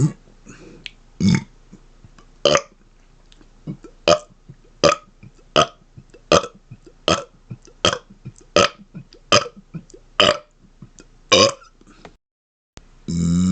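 A man burping in a long run of short, separate burps, about one every three-quarters of a second, a dozen or so in all.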